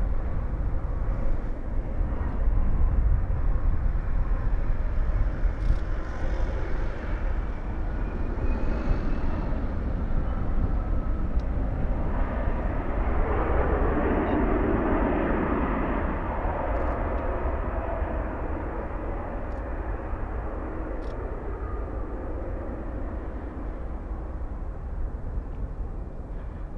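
Jet engines of an ANA twin-engine widebody airliner running as it rolls along the runway. The roar swells to its loudest about halfway through, then slowly fades as the aircraft moves off.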